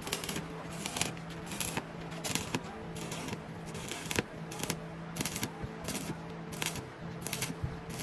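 Arc welding on a boat's exhaust pipe: short bursts of sharp crackling, irregularly about twice a second, over the steady hum of the welding machine.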